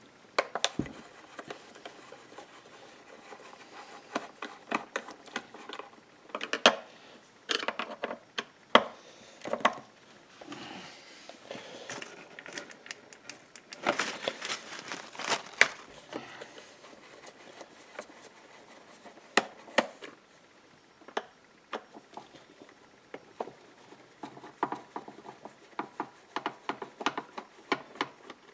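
Scattered clicks and taps of a screwdriver working the screws out of a Husqvarna Rancher 455 chainsaw's plastic top cover, with small knocks of tool and hand against the plastic.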